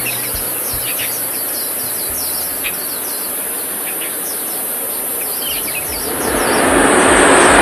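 Birds chirping over a steady high insect buzz. About six seconds in, a rushing jet noise from a two-seat F-16 swells and grows louder as the jet starts its takeoff roll.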